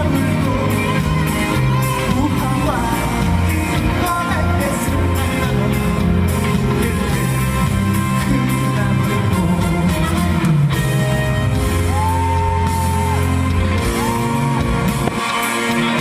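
A trot song performed live through a PA: a male singer over a backing track of bass, drums and band instruments, holding two long notes near the end.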